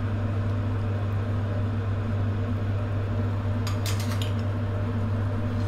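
A few light metal clinks of a ladle against a stainless-steel pot of simmering stew about two-thirds of the way through, over a steady low hum.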